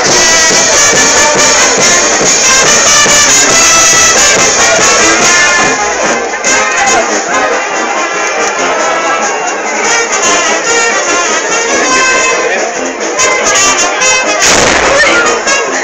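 Street brass band playing lively carnival music, trumpets and trombones carrying the tune, with a brief loud burst of noise near the end.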